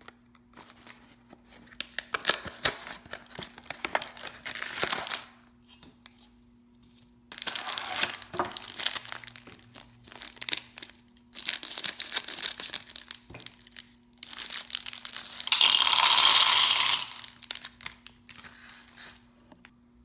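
A cardboard candy box and the plastic bag of Skittles inside it being handled, torn open and crinkled, in four bursts of a few seconds each. The loudest, densest burst comes about fifteen and a half seconds in.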